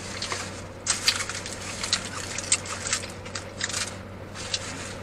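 Aluminum foil burger wrapper crinkling and crackling in irregular bursts as it is handled, over a low steady hum.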